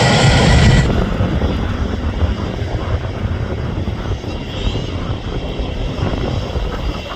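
Jet airliner engines running, heard through heavy wind buffeting on the microphone. A louder whining part with a steady high tone cuts off abruptly about a second in.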